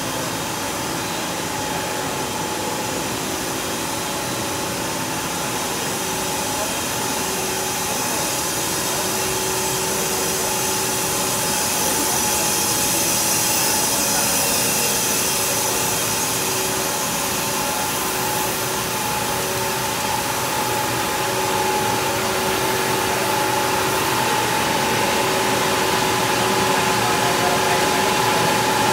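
Steady running noise of an instant noodle production line: a steam hiss over machinery hum with a couple of steady tones, growing slightly louder toward the end.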